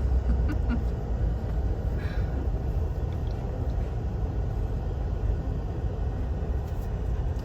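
Steady low rumble of a moving vehicle's engine and tyres, heard from inside the cab.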